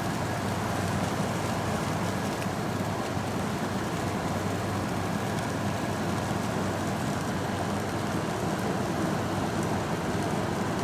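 Early-to-mid-1990s Amana 10,000 BTU window air conditioner running on low cool: a steady rush of air from its fan over a low hum from its rotary compressor, already blowing cold.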